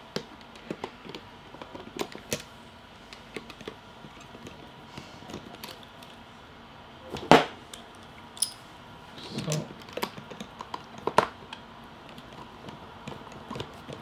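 Scattered small clicks and taps of a screwdriver and metal parts on a smart door lock's handle plate, with one sharper click about seven seconds in.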